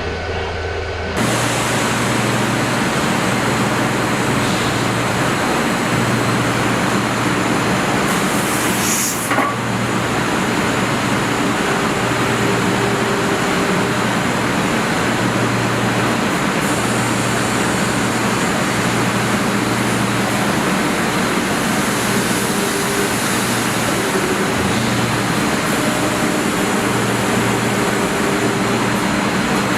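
Steady industrial machinery noise with a low hum, stepping up abruptly about a second in; a short hiss about nine seconds in.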